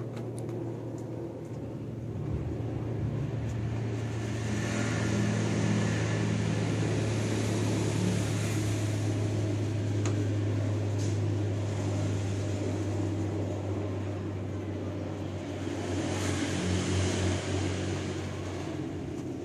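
A steady low machine hum, with a rushing noise that swells and fades twice.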